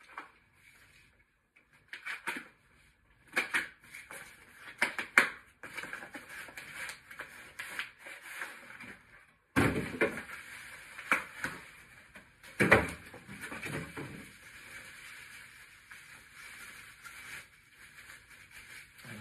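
Packaging being handled: a small cardboard box opened and plastic wrapping pulled out, with irregular rustling and crinkling and several louder crackles.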